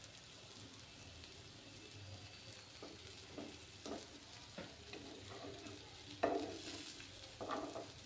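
Potato pancakes sizzling as they shallow-fry in oil in a wok, a steady high hiss. From about three seconds in, a steel spatula presses and scrapes them against the pan in a series of strokes, the loudest just after six seconds.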